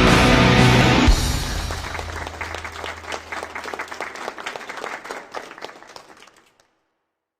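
Heavy metal music breaks off about a second in, leaving a dense patter of clapping applause that thins and fades out, then a moment of silence near the end.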